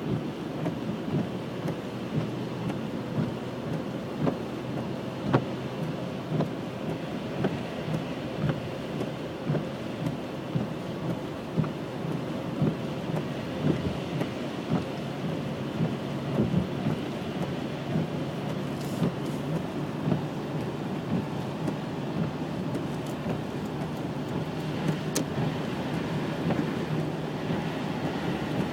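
Snowstorm: a steady, rough rush of wind and falling precipitation, with many small irregular ticks throughout.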